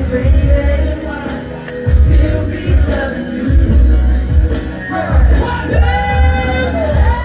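Live R&B pop music played loud over a PA, with a heavy bass beat; about five seconds in, a male singer comes in with wordless gliding vocal runs.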